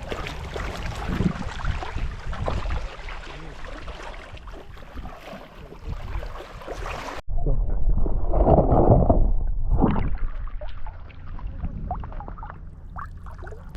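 Shallow water sloshing and splashing around wading legs. About seven seconds in, the sound cuts abruptly to a louder, noisy rush.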